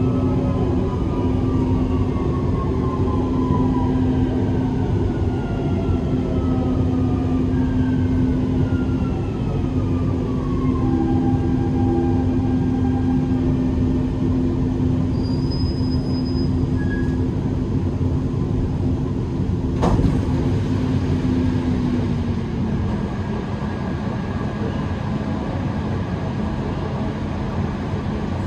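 Dubai Metro train running on the rails with a steady rumble and electric whines falling in pitch as it brakes. There is a single sharp click about twenty seconds in, and the running tone drops lower soon after as the train slows.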